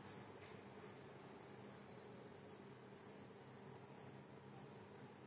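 Near silence with a faint low steady hum, and a cricket chirping faintly: short high chirps repeating a little under twice a second.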